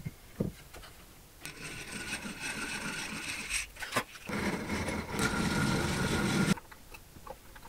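Hand-cranked eggbeater drill boring screw holes into a walnut table stretcher. It makes a steady grinding whir in two spells of about two seconds each, with a short knock between them about four seconds in.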